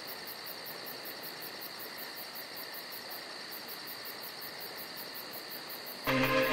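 Crickets chirping steadily over a faint hiss. About six seconds in, a low, ominous sustained music chord comes in abruptly and louder.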